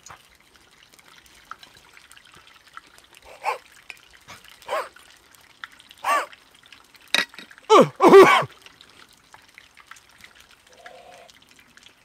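A man's short, pained cries and yelps through an open mouth, about six in a row with the last two the loudest and falling in pitch, from burning his mouth on a bite of very hot deep-fried fish.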